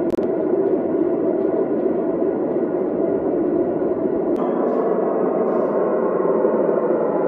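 Car sound system's loudspeakers playing steady test noise for a transfer-function measurement used to tune the system, with most of the sound in the low mids and little treble.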